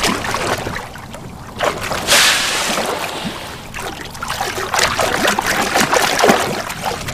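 Sea water sloshing and splashing, with a louder rushing hiss about two seconds in that lasts about a second.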